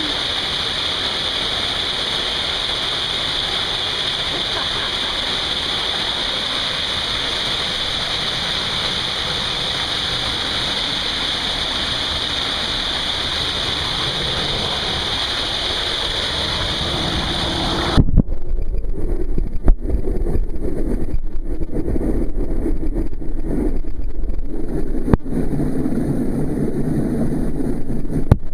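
Water pouring through a creek cascade: a steady, loud rushing hiss. About eighteen seconds in it changes suddenly to a muffled, low churning with scattered knocks.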